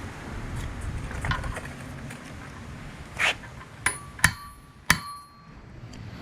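A short scrape, then three sharp hammer blows on metal, each ringing on briefly, from work tapping a universal-joint bearing cap on a front axle shaft.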